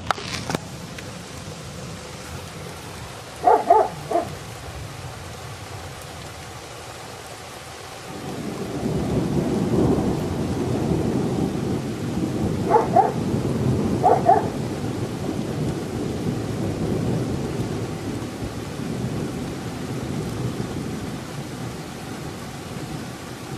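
Steady rain with a long rumble of thunder that swells about eight seconds in and rolls on, slowly easing, to the end. A dog barks a few short times, twice around four seconds in and again around thirteen and fourteen seconds.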